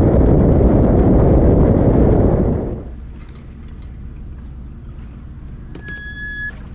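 Wind and road noise on a microphone mounted on a jet ski being towed on its trailer. It cuts off sharply about three seconds in to a much quieter low steady hum, and near the end a single high electronic beep sounds for under a second.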